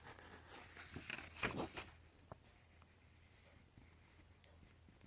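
Paper rustling as pages of a coloring book are handled and turned, loudest about a second and a half in, followed by a few faint clicks against quiet room tone.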